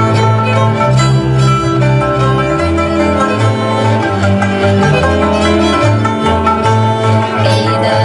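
Hungarian folk dance music led by a fiddle, with a moving bass line underneath.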